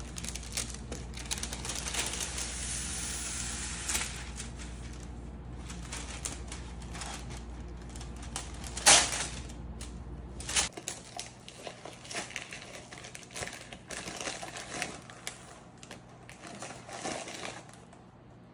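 Parchment paper crinkling and crackling as it is pulled from its box and handled, with many small clicks and one loud sharp crackle about nine seconds in.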